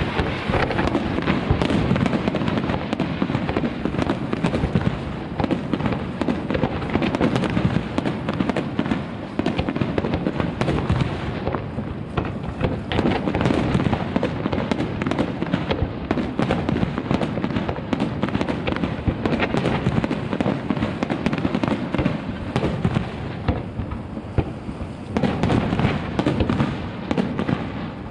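Aerial fireworks display: a dense, nearly unbroken run of shell bursts, bangs and crackling.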